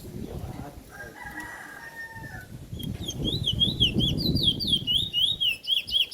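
Bullfinch (seed-finch) singing a fast run of sharp, rapidly repeated up-and-down whistled notes, several a second, starting about halfway through. Before it, a rooster crows faintly in the background.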